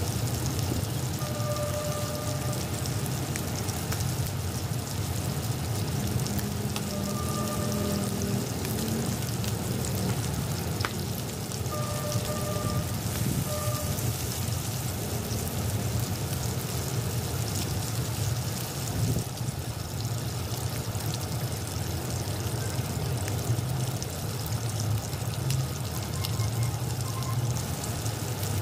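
Pork belly frying in oil in a non-stick wok: a steady sizzle with fine spitting crackles, over a steady low hum.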